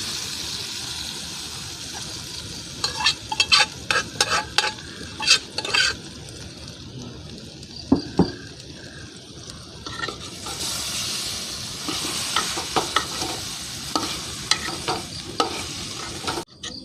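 Boiled tapioca being stirred in a pan of hot coconut oil: a steady sizzle with repeated scraping knocks of the spoon against the pan, in bursts, and one louder knock about halfway through.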